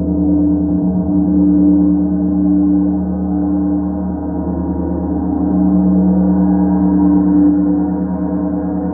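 Starchild gong played with soft felt mallets: a sustained, shimmering wash with a deep low hum under several ringing overtones. It swells twice, about a second and a half in and again near the end.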